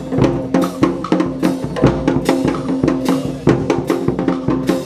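Street band drums playing a steady beat, bass drum and snare hits, with held pitched notes from other instruments underneath.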